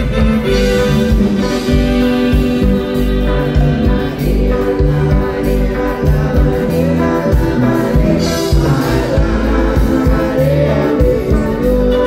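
Live band playing loud, amplified music over a PA, with drums, bass and keyboards under a steady beat and a voice singing.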